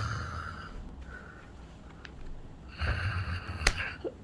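A man snoring in his sleep: one snore fading out in the first second, then another starting about three seconds in and lasting about a second, with a sharp click near its end.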